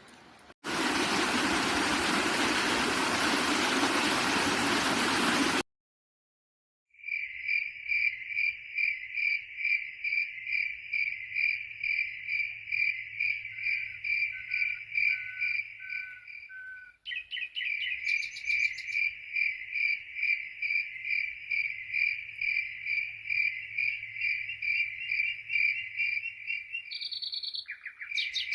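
A cricket chirping steadily in a high, even pulse, about two to three chirps a second, with two brief higher chirps among it. It is preceded by about five seconds of loud, even hiss that cuts off abruptly into a second of silence.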